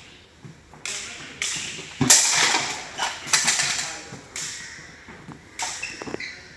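Steel practice swords and bucklers clashing in a quick sword-and-buckler exchange: a run of about ten sharp metallic hits, a few of them ringing briefly.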